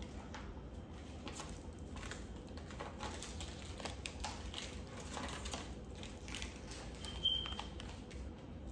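Small plastic glitter packet crinkling and rustling in a child's hands as she works to open it: a run of irregular soft crackles, with one short high squeak about seven seconds in.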